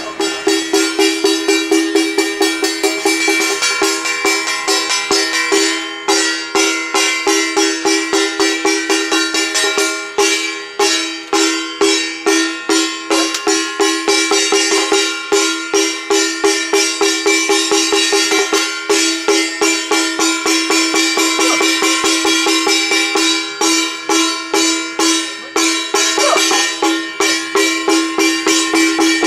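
Procession music: a fast, even beat of struck percussion under a steady held high tone.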